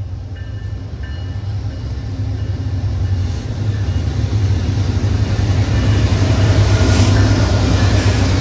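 Union Pacific diesel freight locomotives hauling a double-stack container train, running with a deep engine rumble that grows steadily louder as the train approaches and the lead units pass close by.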